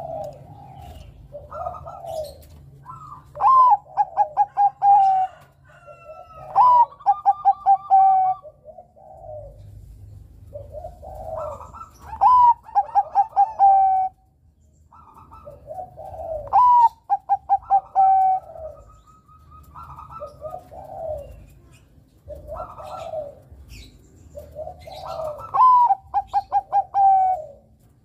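Zebra dove (perkutut) of the Bangkok strain singing its cooing song over and over. Each loud phrase starts with a rising note and runs into a quick string of short, even coos, with softer, lower cooing between the phrases.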